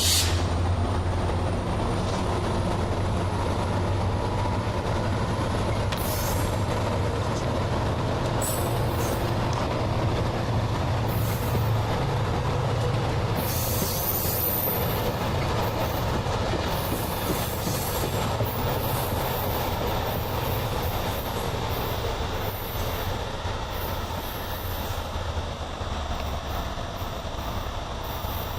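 MARC commuter train rolling slowly into the station. Its brakes squeal in repeated high bursts over a steady low rumble from the locomotive.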